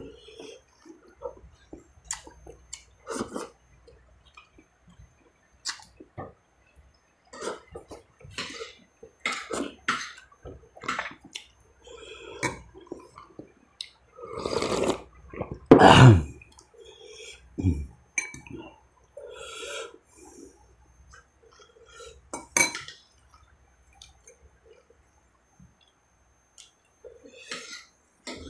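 A man eating boiled beef ribs and rice with his hands, up close: chewing, lip smacks and sucking at the meat. About halfway through, a loud slurp of broth from the bowl ends in a short, falling throat sound.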